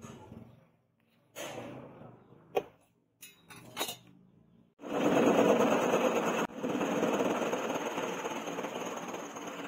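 A few light knocks and clicks of a ruler and pencil being handled on a wooden bench. Then, about five seconds in, a bench-mounted power saw starts cutting a strip of hardwood: a loud, steady, dense cutting noise.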